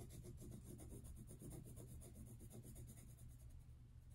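Faint scratching of a graphite pencil on paper in quick back-and-forth strokes.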